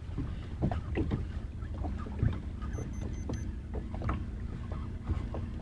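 Wind rumbling on the microphone and water lapping at a small boat on open water, with scattered small clicks and knocks from the fishing gear and hull. About three seconds in come four quick, faint high beeps.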